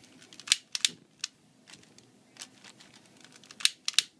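Thin plastic bag of butane vapor being squeezed, crinkling in a string of short, sharp crackles, the loudest about half a second in and again near the end.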